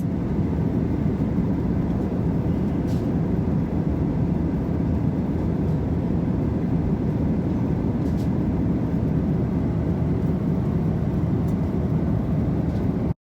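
Steady rumble of an airliner cabin, jet engine and airflow noise, that cuts off abruptly near the end.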